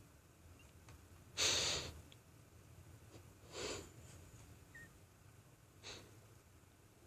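Three short, airy sneezes: the loudest about a second and a half in, a softer one about two seconds later, and a faint brief one about six seconds in.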